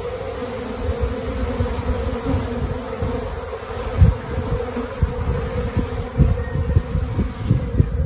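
A swarm of honey bees buzzing in a steady hum as they cluster on and crowd into a swarm-trap box. Irregular low thumps come through under the buzz, the strongest about four seconds in.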